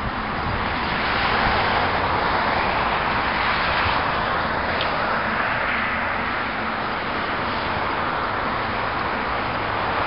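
Steady hiss of road traffic, swelling and easing slightly as vehicles go by.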